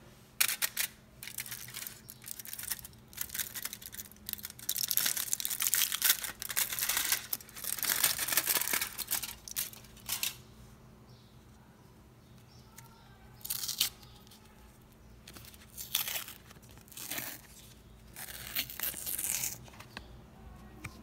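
Aluminium foil crinkling and crumpling as it is peeled off a paper cup of frozen kulfi, thick and continuous through the first half, then separate bursts of paper tearing and crinkling as the paper cup is torn away from the frozen kulfi.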